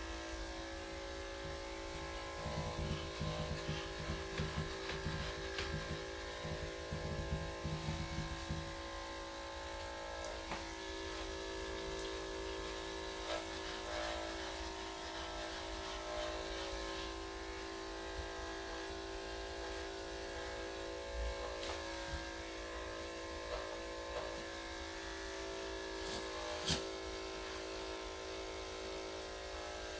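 Electric dog-grooming clippers fitted with a #5 blade running with a steady hum as they shave a Shih Tzu's coat. The sound is louder and uneven for the first several seconds, with one sharp click near the end.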